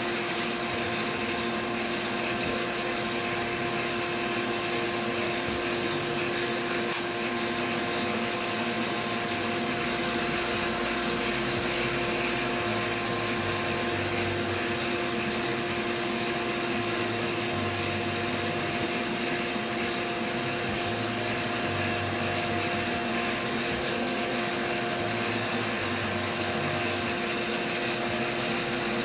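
CNC milling machine cutting a contour toolpath: a steady whine of several tones over an even hiss, with a low rumble that shifts as the cutter passes back and forth.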